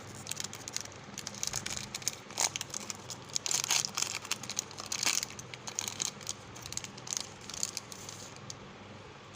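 Plastic candy wrappers crinkling and rustling as they are handled and opened by hand, in irregular crackles that come thickest about halfway through.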